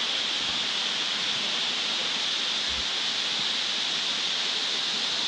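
Steady rushing of a three-tiered waterfall: an even, unbroken hiss.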